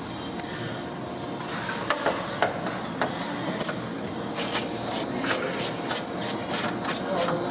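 Hand tool working screws out of a dryer's sheet-metal front panel by hand: irregular sharp clicks and light scraping, coming faster, about two to three a second, from about halfway through.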